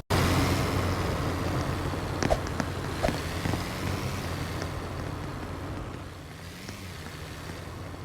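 A vehicle's engine running with a steady low hum and road noise that slowly fades over the second half, with a few faint clicks.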